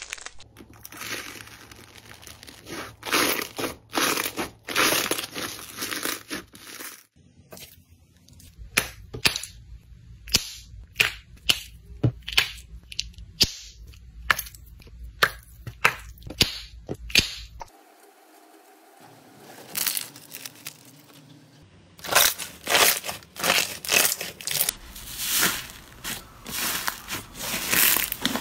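Slime squeezed and kneaded by hand, making dense crackling squishes. In the middle comes a run of sharp pops and crackles, about one or two a second, as small liquid-filled plastic bags are squeezed. After a quieter pause, thick fluffy slime is pressed with soft, dense squishing.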